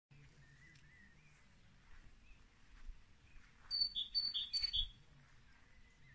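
Outdoor birdsong: faint twittering, then one bird gives three short, high calls in quick succession about four seconds in.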